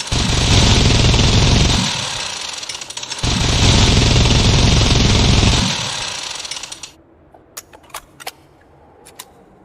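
Minigun firing in two long, very rapid bursts, each trailing off as it winds down, followed by a few sharp clicks near the end.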